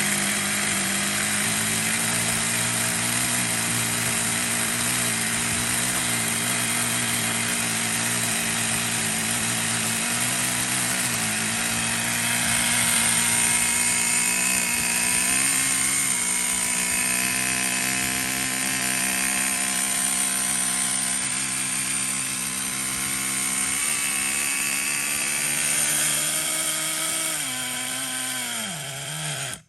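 The twin .18 nitro glow engines of a Schumacher Manic 36 RC car run steadily after a fresh start. The pitch dips briefly a few times, sags near the end, and then the engines stop abruptly.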